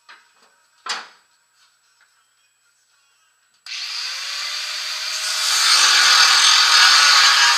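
A few light knocks, then, about halfway through, an angle grinder starts suddenly, its whine rising as the disc spins up. It then cuts into the sheet-metal snowblower housing with a loud, steady grinding.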